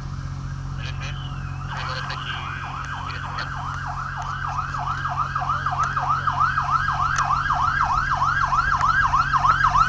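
Emergency vehicle siren in a fast yelp, about three up-and-down sweeps a second, starting about two seconds in and growing steadily louder as it approaches, with a fainter slower wail above it. A steady low hum runs underneath.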